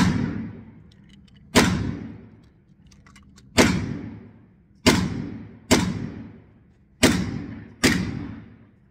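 Gunshots echoing in an indoor shooting range: seven single shots at uneven intervals, each a sharp crack with a long ringing tail, fired by other shooters on the range.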